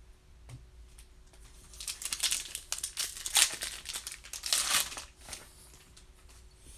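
Foil wrapper of a 2019 Bowman Platinum baseball card pack being torn open and crinkled by hand: about three seconds of crackling rustles, loudest in two spurts in the middle.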